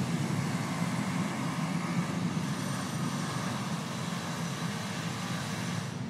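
Military aircraft engine noise: a steady low rumble with a faint high whine, easing off a little over the first few seconds.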